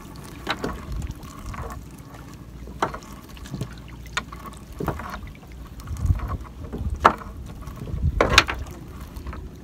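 Fishing net being hauled by hand over a small boat's side: scattered knocks and rustles of net against the hull, the loudest ones near the end, over a low rumble of wind on the microphone.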